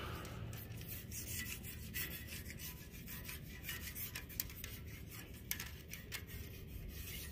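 Long wire bore brush scrubbing inside an oil galley of a Willys L134 engine block, metal bristles rasping against the passage walls in quick, irregular strokes as dirt is loosened from the front main bearing galley.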